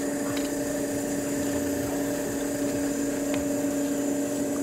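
Steady mechanical hum of a small motor running at an even pitch, with a couple of faint clicks.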